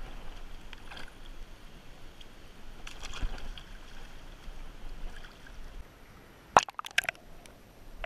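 Shallow seawater sloshing and gurgling in a rock pool as a caught fish is lowered into it by hand, with a few sharp splashes or knocks near the end.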